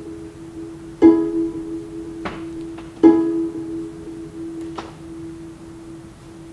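Harp plucking the same single note twice, about a second and about three seconds in, each note ringing out and slowly fading. Two faint clicks fall between the notes.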